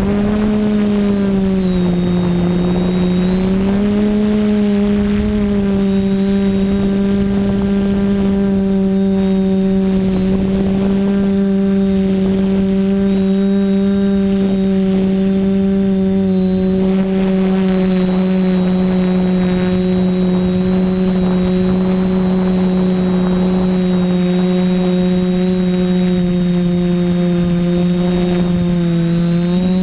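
TBS Discovery quadcopter's Sunnysky 2216 800kv brushless motors spinning Graupner 10x5 propellers in flight, a loud steady buzzing drone. The pitch dips slightly about two seconds in and again near the end, each time rising back as the throttle changes.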